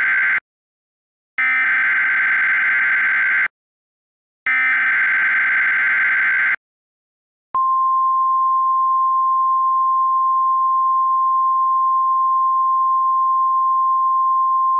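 NOAA Weather Radio emergency alert signal: the buzzy digital SAME header bursts, the tail of one and then two more of about two seconds each, separated by brief silences. About 7.5 seconds in, the steady single-pitch 1050 Hz Warning Alarm Tone starts, announcing a Civil Emergency Message.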